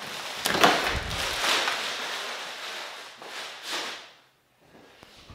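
Clear plastic packaging rustling and crinkling as a padded tailgate cover is pulled out of it and laid down, with a thump about a second in. The handling noise stops about four seconds in.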